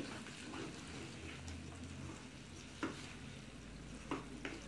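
Potato and carrot strips sizzling in oil in a wok as a spatula stirs them, with a few sharp knocks and scrapes of the spatula on the pan in the second half.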